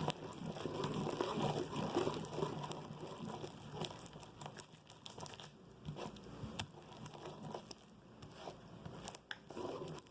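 Hands kneading and stretching slime as the activator is worked in, giving irregular sticky clicks, crackles and crinkly pops, busiest in the first few seconds.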